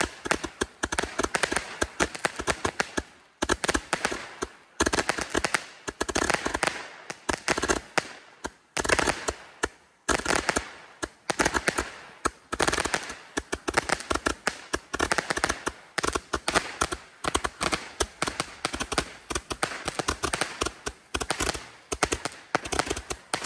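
Handheld repeating firework tube firing a rapid string of small pops and cracks, coming in bursts separated by short pauses.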